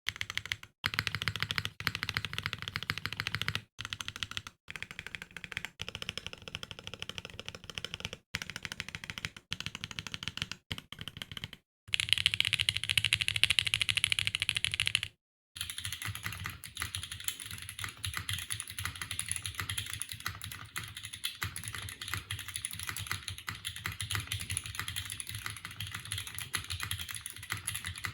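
Fast typing on a mechanical keyboard fitted with Outemu Maple Leaf tactile switches, which are factory-lubed and have nylon housings. A continuous run of keystroke clacks is broken by a few very short gaps. A louder stretch comes about twelve seconds in, and after a brief gap the typing sounds brighter.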